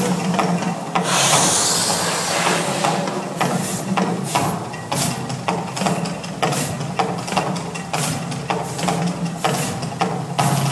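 Gas-fired flame effects of an outdoor fire show, with a loud rushing whoosh of a fireball about a second in. After it come a run of sharp knocks, roughly one or two a second, over a steady low hum.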